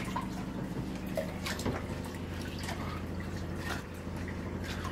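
Tap water running into a rice-cooker pot while rice is washed by hand, with irregular splashing and sloshing as the hand stirs the grains. A steady low hum sits underneath.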